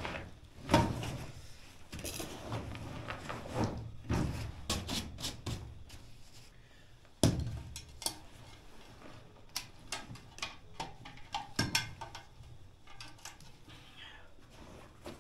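Camping gear being handled and set down: rustling and small clicks with a string of knocks and clunks, the sharpest about seven seconds in.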